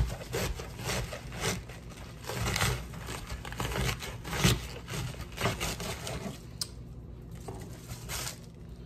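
Knife slicing through a head of green cabbage on a cutting board, with leaves tearing and rustling: irregular cutting strokes that grow fewer and softer after about six and a half seconds.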